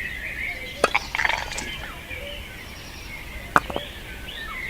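Sharp taps: two pairs, about a second in and again near the end, and a short clatter of small hard objects between them, over birds chirping throughout.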